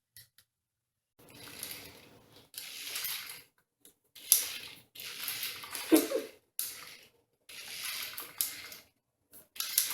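Rustling and light clattering handling noise in a string of short bursts, each about a second long, with a few sharp clicks and brief silent gaps between them.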